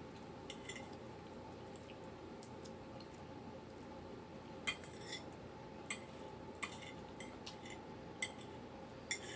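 Cutlery clinking against a dish while eating: about a dozen light, irregular clinks with a short ring, over a faint steady hum.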